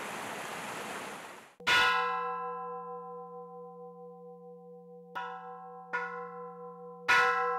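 Mountain stream rushing over rocks, cut off about a second and a half in. Then a Buddhist temple bell is struck four times, each strike ringing on in long, steady, overlapping tones, the first and last strikes loudest: the bell opening the evening service.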